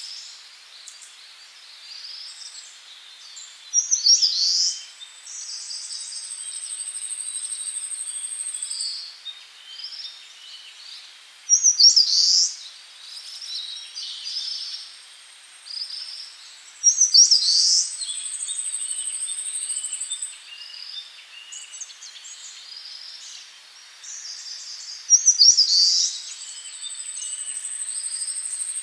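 Songbirds chirping and twittering, with four louder bursts of chirps, each followed by a thin, high whistle held for a few seconds.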